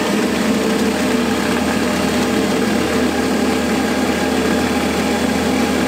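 Metal lathe running steadily, spinning a homemade permanent-magnet generator at about 1,700 to 1,800 RPM while it charges a car battery.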